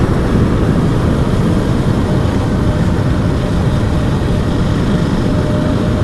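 Wind buffeting the microphone on a moving motorcycle, with the engine running underneath. A faint steady hum comes in about halfway through.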